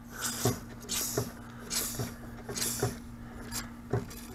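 Hands working at a generator's rubber fuel line and metal hose clamp: a series of light clicks and rustles, about one every three-quarters of a second, over a faint steady hum.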